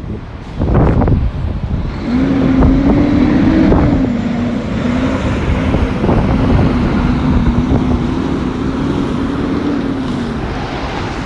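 Wind buffeting the microphone beside road traffic, with a steady, slightly wavering low hum from a vehicle starting about two seconds in and fading out near the end.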